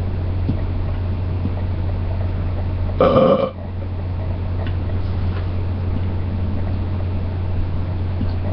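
A person belching once, a short pitched belch about three seconds in, over a steady low hum.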